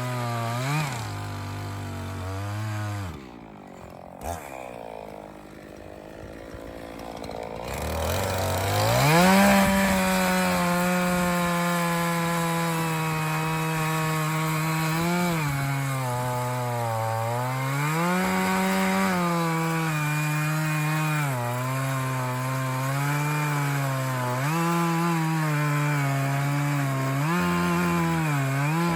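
Echo CS501P two-stroke chainsaw bucking an ash log. It drops to a low idle for a few seconds, revs up sharply, and then runs at full throttle, its pitch dipping repeatedly as the chain bogs under load in the dry, hard wood.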